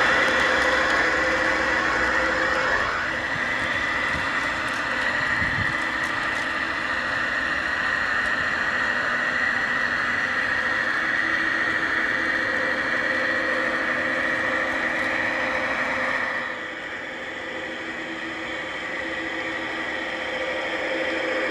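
Gauge 1 model Class 66 diesel locomotive running with a train of bogie wagons: a steady drone with a constant high whine. It drops in level suddenly about three-quarters of the way through.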